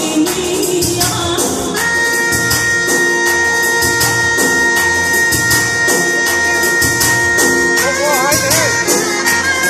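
Live Albanian folk dance music played on a keyboard over a steady fast beat with a jingling, tambourine-like rhythm. A high lead note is held for about six seconds, then breaks into a quick, ornamented wavering melody near the end.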